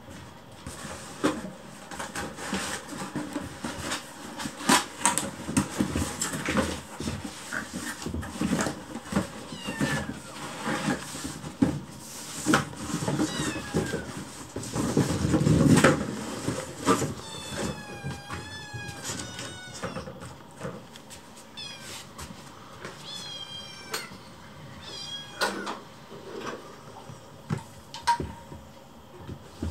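Several hungry kittens meowing repeatedly, pestering for food, with high wavering cries clustered in the second half. Frequent knocks and taps run throughout, with a brief low rumble about halfway through.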